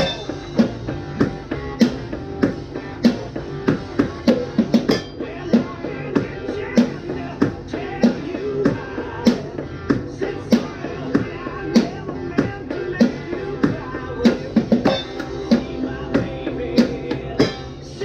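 Rock drumming on a small acoustic kit with cloth-and-tape-muffled cymbals, played along to a rock backing track with guitar from a small speaker. The strongest hits fall on a steady beat, a little more than one and a half a second.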